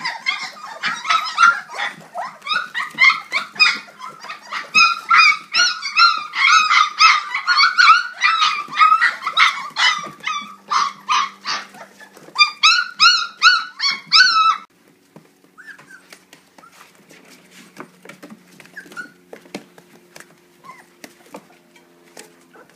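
A litter of very young Kuvasz puppies whining and squealing in many overlapping high-pitched cries. About fifteen seconds in the crying cuts off abruptly, leaving only a few faint cries.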